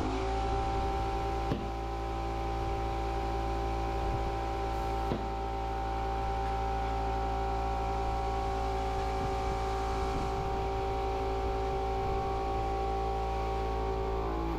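Small domestic air compressor running steadily with an even motor hum, inflating a tubeless motorcycle tyre held by a strap to seat its beads, with two faint clicks early on.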